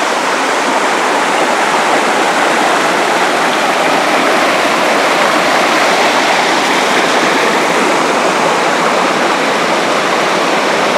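Waterfall: water rushing and splashing in a loud, steady, even hiss.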